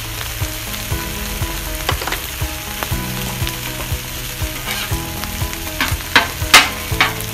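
Rice, onions and beef short ribs sizzling on a Blackstone flat-top griddle. From about four and a half seconds in, a metal spatula scrapes and clacks against the steel cooktop as the rice is turned, loudest about six and a half seconds in.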